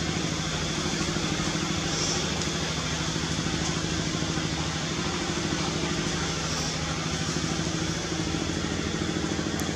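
An engine idling steadily: a low, even hum with a fast regular pulse.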